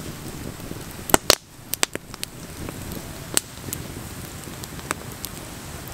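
Campfire of split logs crackling, with irregular sharp pops over a steady low noise; the two loudest pops come about a second in.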